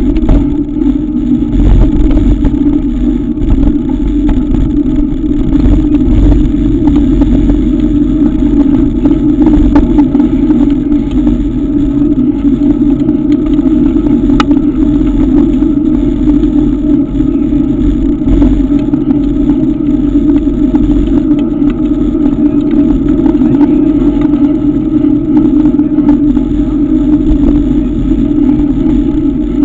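Steady, loud wind and road rumble on a camera riding with a mountain bike along a paved lane, with a few faint clicks and rattles, one sharp tick about halfway.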